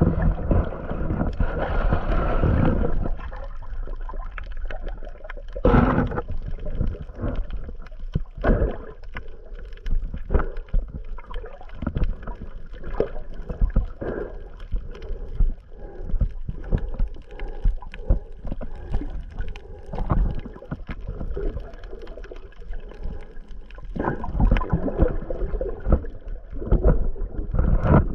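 Muffled water noise picked up by a GoPro Hero 8's microphone under water: water sloshing and gurgling around the camera, with frequent small clicks and knocks. It is louder at the start and again near the end.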